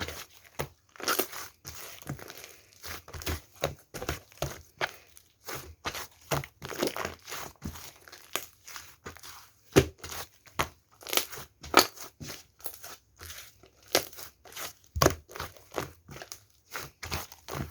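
Hands kneading and stretching purple pearl slime mixed with angel clay, making irregular popping and clicking sounds several times a second.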